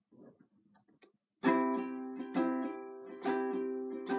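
Ukulele strummed slowly, starting about a second and a half in: a chord about once a second, each left ringing into the next, opening a slow song.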